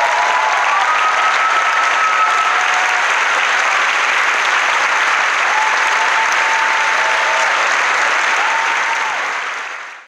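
Audience applauding steadily at the end of a talk, fading away just before the end.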